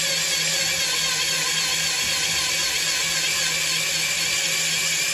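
Electric drill-driver motor running steadily at one speed, spinning a socket on a car wheel's lug nut, with no hammering.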